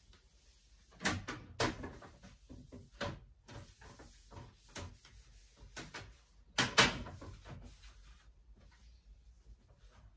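A run of knocks, clicks and short scuffs from objects being handled, moved and set down during bathroom cleaning. The loudest come about a second in and again near seven seconds.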